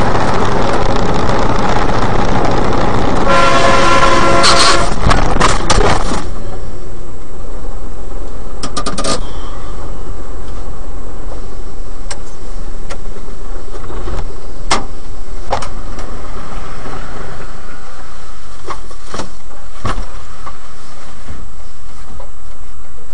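Truck engine running loudly, heard from inside the cab of a truck crane, with a vehicle horn sounding for about a second and a half a few seconds in. Scattered clicks and knocks follow.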